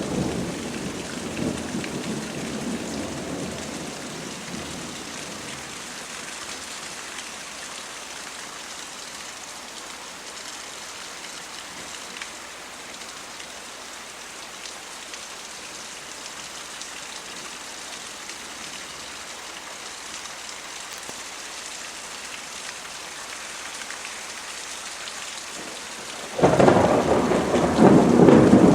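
Thunderstorm: steady rain falling, with a roll of thunder fading away over the first few seconds and a sudden loud peal of thunder breaking in near the end.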